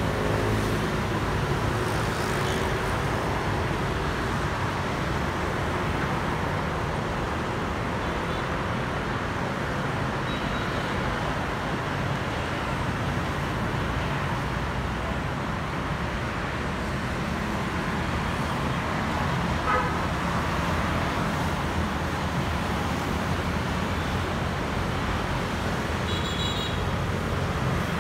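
Steady road traffic of motorbikes and cars passing on a wide multi-lane street. A brief horn toot sounds about two-thirds of the way through, and another short, higher horn sounds near the end.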